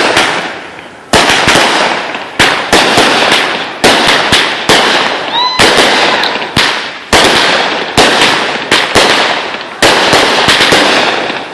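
Fireworks exploding: a rapid, irregular string of loud, sharp bangs, roughly one every half second to a second, each trailing off in a rolling echo.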